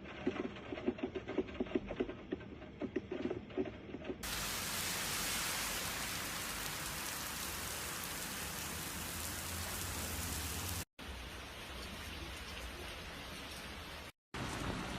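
Heavy rain pouring down, a steady hiss, in several short clips joined with abrupt cuts. The first few seconds are duller, with rapid irregular patters.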